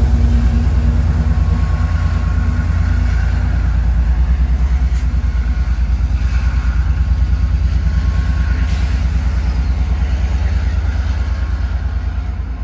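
EMD F59PH diesel locomotive's two-stroke engine running with a low pulsing throb as it pushes a departing commuter train away, gradually fading.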